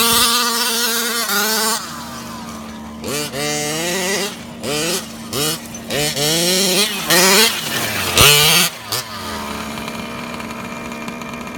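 Red Arrow 34cc two-stroke engine of a 1/5-scale Kraken Vekta 5 RC car, held at high revs for about two seconds and then dropping back. It is then blipped in a string of quick rising revs and settles into a steady idle near the end.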